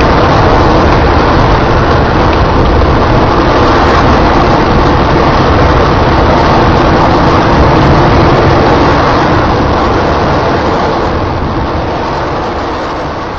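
Rocket engine static test firing on a test stand: a loud, steady roar of noise that fades over the last few seconds.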